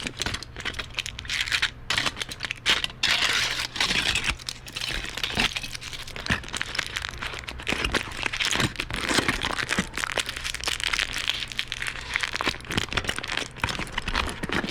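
Aluminum foil being handled and crumpled, with a continuous dense crinkling and many sharp crackles throughout. A faint steady hum runs underneath.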